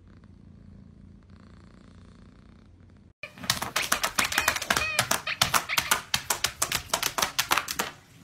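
Faint, steady cat purring, then, after a cut about three seconds in, a loud, fast run of sharp clicking taps as a dog paws at a tablet's touch screen, with a couple of short squeaks in the middle.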